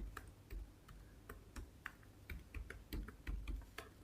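Typing on a computer keyboard: irregular key clicks, about three or four a second.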